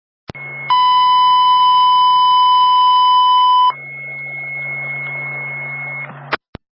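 Police dispatch radio channel: a squelch click opens onto hiss and hum, then a loud steady alert tone sounds for about three seconds and cuts off sharply, the dispatcher's warning before a priority call. Open-channel hiss follows, ending in a few short squelch clicks.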